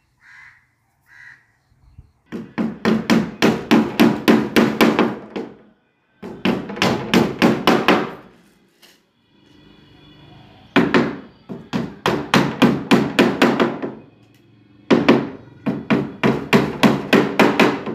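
Hammer striking wooden strips being fixed onto a door's plywood panel: quick runs of blows, about four or five a second, in four bursts with short pauses between.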